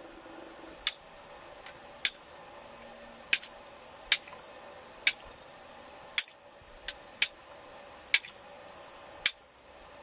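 Flint and steel struck about ten times, roughly once a second, each strike a sharp, bright click, throwing sparks onto charred fungus tinder to catch an ember.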